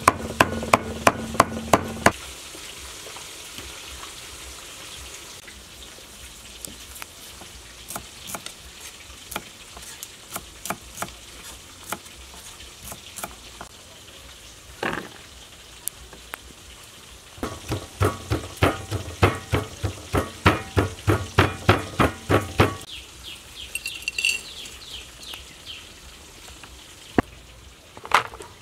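A cleaver chops pork into mince on a wooden board in fast, even strokes, about four a second, for the first two seconds. Then comes a fainter, steady sizzle of frying in hot oil with scattered light clicks. A second burst of rapid chopping strokes runs from about two-thirds of the way through.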